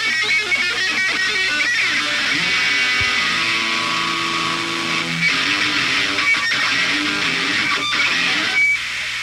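Live rock band playing, led by loud strummed electric guitar with bass, held chords ringing through the middle. The music stops abruptly near the end.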